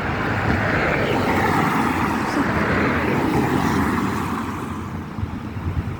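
A road vehicle driving past, its tyre and engine noise swelling to a peak about one to three seconds in and then fading away.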